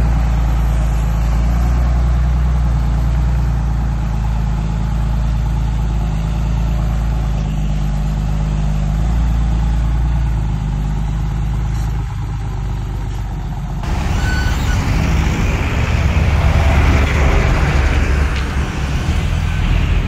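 Heavy diesel engine of earthmoving equipment running steadily with a deep low hum. About fourteen seconds in, the sound changes abruptly to a louder, rougher engine noise.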